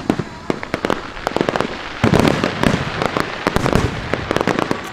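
Aerial fireworks shells going off in rapid, irregular succession: many sharp bangs overlap one another, with a dense, loud run of them about two seconds in.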